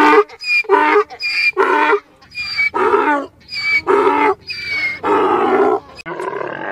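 A wild animal calling in a rapid series of short, harsh, pitched calls, roughly two a second, with the last few calls drawn out longer.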